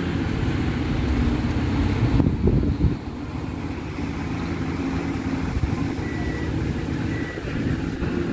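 KATO excavator's diesel engine running steadily, with a short burst of knocking about two and a half seconds in, after which it is a little quieter.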